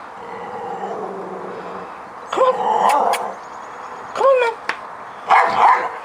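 A dog barking about four times, starting about two seconds in, with the last barks coming in quick succession.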